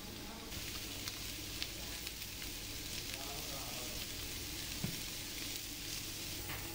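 Lamb arrosticini skewers sizzling on a hot grill tray in a pizza oven: a steady hiss with scattered crackles, starting about half a second in, over a steady low hum.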